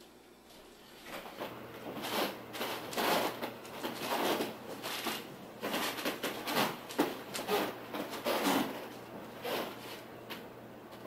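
Irregular crunching and rustling scrapes, roughly two a second, that stop shortly before the end.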